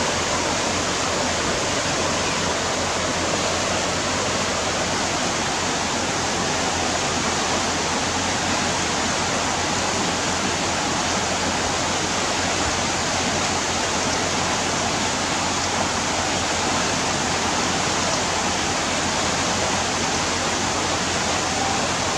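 Whitewater river rapids rushing in a steady, unbroken roar of water.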